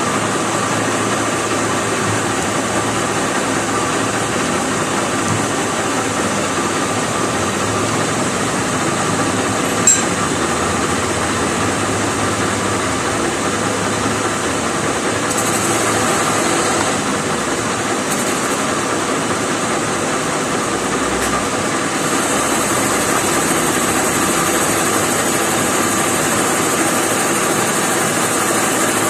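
Metal lathe running steadily, with a sharp click about ten seconds in and a high hiss that comes and goes in the second half.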